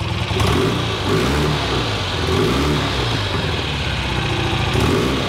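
1965 BSA Lightning Clubman's 650 cc parallel-twin engine, breathing through its siamesed two-into-one exhaust, idling and blipped a few times by hand on the throttle. Each blip is a quick rise and fall in pitch.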